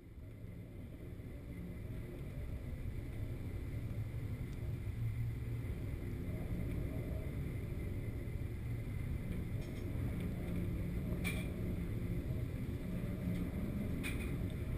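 Ship's engine and hull heard from inside the wheelhouse in a storm: a steady low drone that fades in over the first couple of seconds. A few brief clicks or knocks come in the second half.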